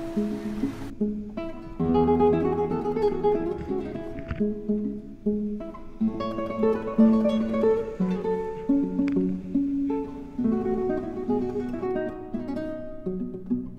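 Background music: a solo acoustic guitar piece of many quick plucked notes.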